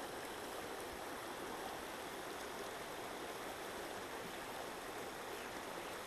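Small, shallow river flowing over rocks: a steady, even rush of running water.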